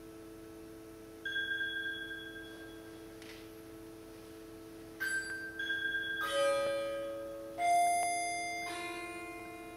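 Music-box combs inside hanging galvanized zinc buckets plucking a handful of sparse notes, each ringing out and slowly dying away. The loudest note comes about three-quarters of the way through, over a steady held drone of several low tones.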